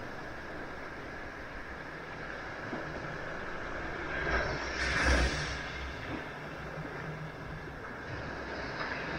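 Waves on a beach: a steady wash of surf, with one wave breaking about halfway through, the loudest moment, and another starting to break near the end.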